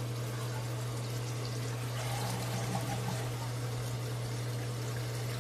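Water pouring out of a toilet tank through the open flapper as it drains during a flush, over a steady low hum.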